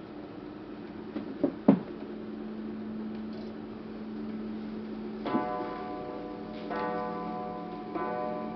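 Antique pendulum wall clock striking the hour, a ringing strike about every second and a quarter from about five seconds in, set off by turning the minute hand round to twelve. A few sharp knocks come before the strikes, the loudest about two seconds in.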